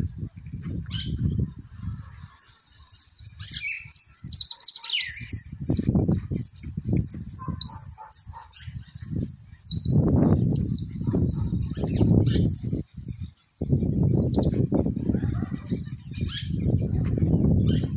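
A caged yellow mixto finch singing a long, fast run of high chirps and trills, starting about two seconds in and stopping near fifteen seconds. A loud, uneven low rumble runs underneath.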